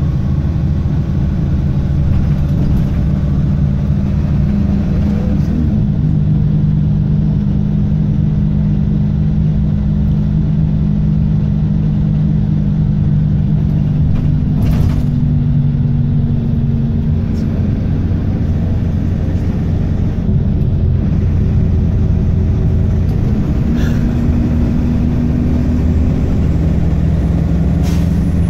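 Optare Tempo single-deck bus heard from inside the passenger saloon on the move: its diesel engine drones steadily under tyre and road noise, the engine note shifting pitch a few times as it pulls and eases off.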